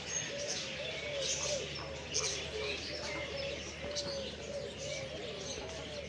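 Aviary birds calling: low, soft, cooing calls repeating one after another, with high chirps and twitters scattered over them.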